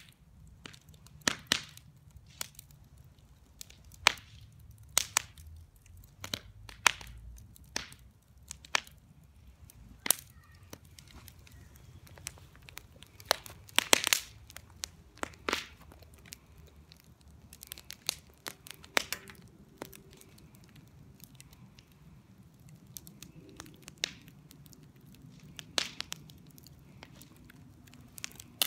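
Fireworks and firecrackers going off: sharp cracks and pops at irregular intervals, some in quick pairs, with the loudest burst of cracks about halfway through.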